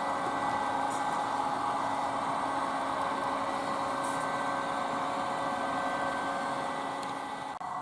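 HO-scale model train running on the layout: a steady whirring hum with a few faint held tones, dipping briefly near the end.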